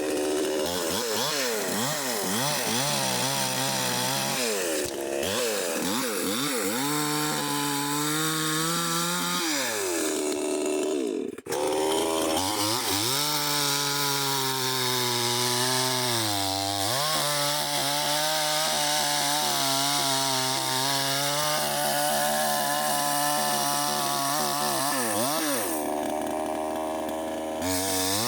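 Two-stroke chainsaw running at high revs and cutting into the trunk of a dead ash tree, its engine pitch sagging and rising again repeatedly as the chain bites into the dry hardwood. Its sound dips briefly about eleven seconds in before it is back at full throttle.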